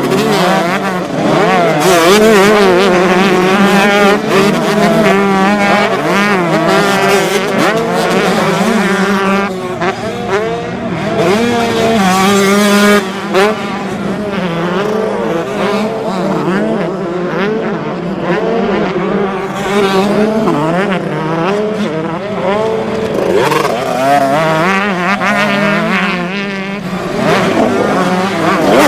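Several 125cc two-stroke motocross bike engines revving hard at once, their pitch rising and falling as the riders work the throttle and shift through the gears.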